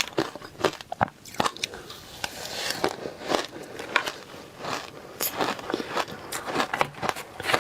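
Close-miked biting and crunching of frozen matcha ice: a string of sharp, irregular crunches as mouthfuls of icy, powdery frost are bitten and chewed.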